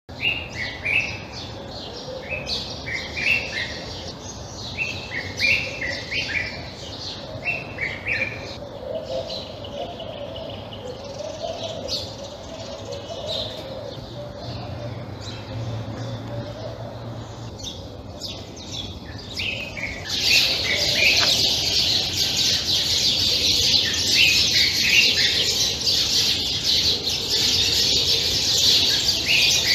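Common bulbul singing short, bubbly phrases repeated about once a second for the first eight or so seconds. About twenty seconds in, a louder, dense high-pitched chatter of chirps sets in and fills the rest.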